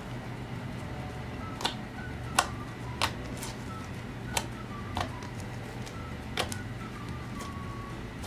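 Stretchy taffy-textured slime being pressed and pulled by hand, giving sharp clicks and pops at irregular intervals with faint squeaks between them, over a low steady hum.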